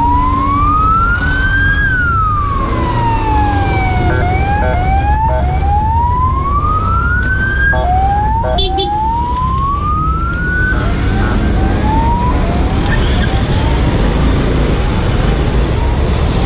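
An emergency vehicle siren wailing in slow rises and falls of about two seconds each, broken by a few quick yelps around four and eight seconds in, fading away after about twelve seconds. Under it is a steady rumble of road traffic and engine noise.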